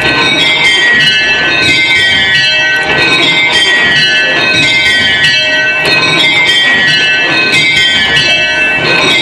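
A mini-ring of very light tower bells (ten bells, tenor 15 lb 6 oz) being change-rung on ropes. It is a rapid, unbroken succession of high-pitched bell strikes, each row cascading down in pitch from the treble to the tenor.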